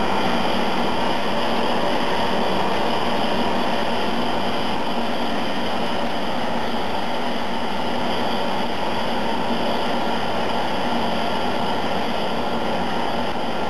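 Milling cutter in a vertical turning lathe's live-milling head cutting metal: a loud, steady machining noise with a constant low hum and a high whine running through it.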